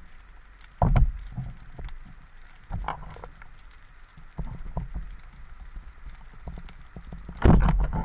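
Underwater sound picked up by a camera on a speargun: scattered clicks and a few dull knocks as the gun moves along a reef rock, then near the end a loud rush of water and bubbles.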